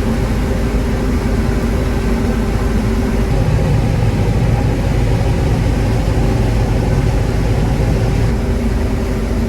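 John Deere 9600 combine running steadily while harvesting corn with an 8-row corn head: a constant machine drone with a steady hum. The low rumble grows heavier for a few seconds in the middle.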